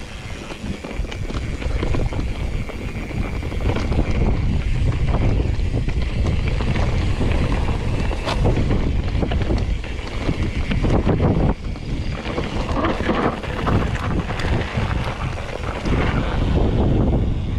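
Wind buffeting the microphone over steady rattling and knocking from a mountain bike riding over rough ground. The sound grows louder about two seconds in.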